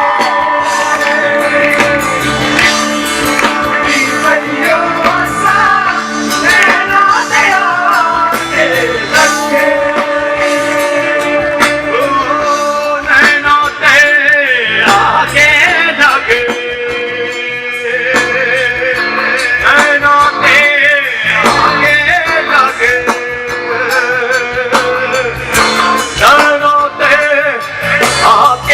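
A band playing live: a sustained melody line that bends and slides in pitch over a dense string and rhythm accompaniment.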